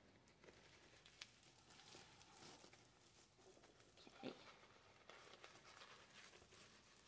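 Near silence with faint rustling and light handling noise as ribbons are worked into a mesh wreath. There is a small click about a second in and a soft tap about four seconds in.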